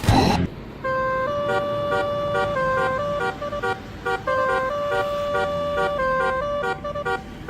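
Telolet bus horn, a multi-tone musical air horn, playing a tune of long and short notes that step back and forth between two pitches, starting about a second in.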